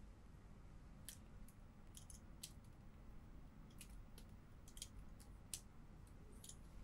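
Near silence with a dozen or so faint, sharp little clicks, irregularly spaced: hands handling a plastic sheet and a cut sketch-pen tube while a rubber band is wound on to close it.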